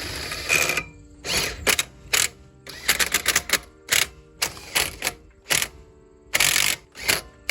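Ratchet and 21 mm socket running lug nuts down on wheel-spacer studs: a dozen or so short bursts of rapid clicking, irregularly spaced, with a tight cluster about three seconds in.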